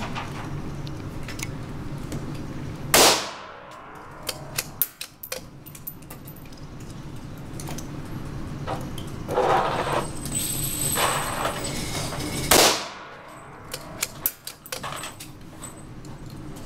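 Two .17 HMR rifle shots, about three seconds in and again about nine and a half seconds later, each ringing out in the reverberant indoor range. Small metallic clicks and knocks come between the shots.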